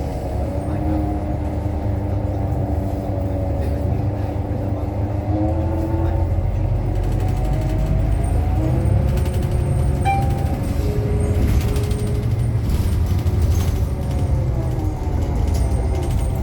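Diesel-electric hybrid drive of a 2018 New Flyer XDE60 articulated bus heard from inside, a whine rising and falling in pitch several times as the bus speeds up and slows, over a low engine rumble. The whine is the unusual sound that sets this bus apart from others of its type.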